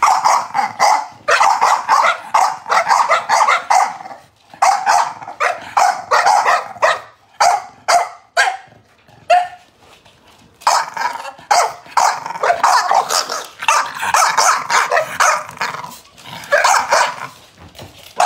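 Two chow chow puppies barking and growling at each other in rapid volleys of short, high yaps while squabbling over a treat. There is a short lull about four seconds in and a longer one around the middle before the barking picks up again.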